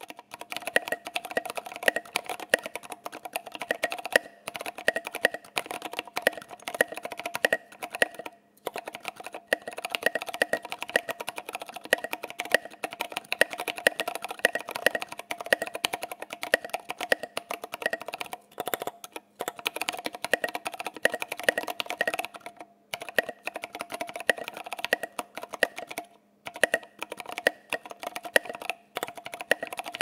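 Steady touch-typing on a custom mechanical keyboard with lubed Ergo Clear tactile switches on 65 g gold springs and tall SA keycaps: a fast, continuous stream of keystroke clacks, with a few brief pauses.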